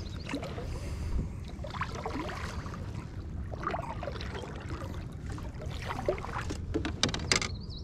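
Water moving against a fishing kayak's hull, with scattered small knocks and a quick run of clicks about seven seconds in.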